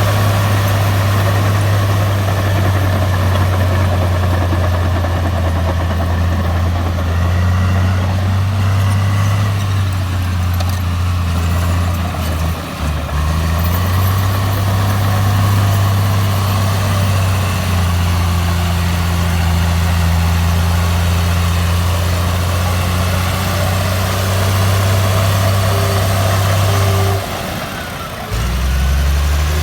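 Komatsu bulldozer's diesel engine running steadily with a deep drone. It eases off briefly about 13 seconds in and again for about a second near the end.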